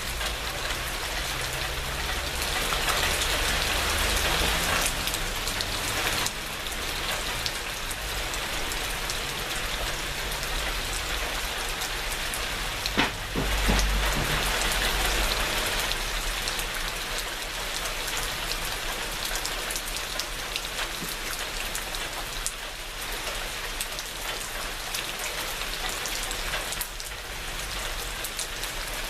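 Steady heavy rain falling and pattering on surfaces, a continuous dense hiss. About halfway through there is one sharp crack followed by a short low rumble.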